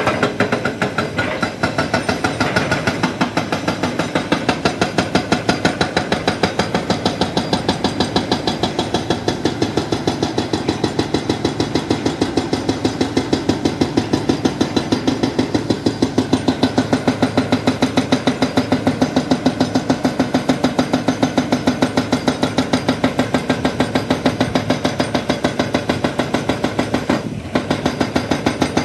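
Hydraulic rock breaker on a Volvo excavator hammering rock in rapid, even blows, over the excavator's running engine. The blows break off briefly near the end, then start again.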